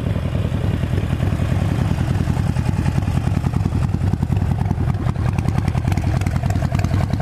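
Motorcycle engine idling steadily with an even, rapid pulse.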